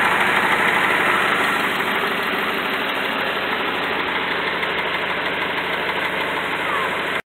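1997 Ford Aspire's 1.3-litre four-cylinder engine idling steadily; the sound cuts off suddenly near the end.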